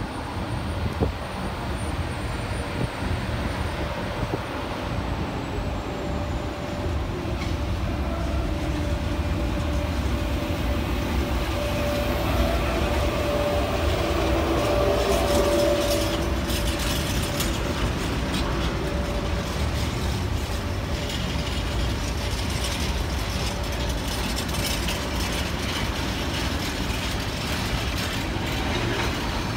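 E.652 "Tigre" electric locomotive running through at the head of a container freight train: a steady hum from the locomotive, strongest as it passes about halfway through, then the repeated clicking and rumble of the container flat wagons rolling over the rail joints.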